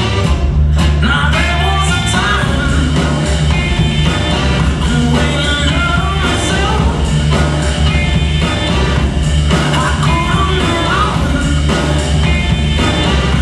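Rock song with singing, playing loudly and steadily.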